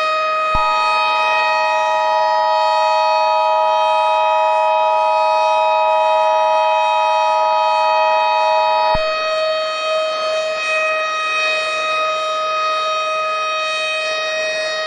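A civil defense siren holds one steady tone throughout. About half a second in, the Emergency Alert System's two-tone attention signal joins it for about eight seconds and then cuts off with a click.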